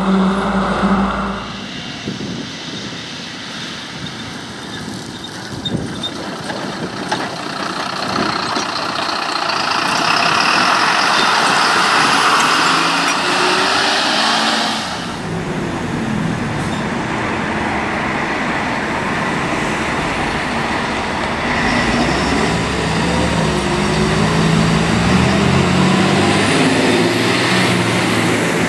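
Heavy fire trucks' diesel engines pulling away and accelerating, heard in several short clips one after another. The engine pitch rises and falls with the revs, and a broad hissing rush runs from about 8 s until a cut at about 15 s.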